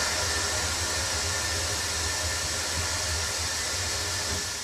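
Pneumatic bead breaker of an iDEAL TC-400M-B motorcycle tire changer worked by its foot pedal: a steady hiss of compressed air through the valve and cylinder, tapering off near the end.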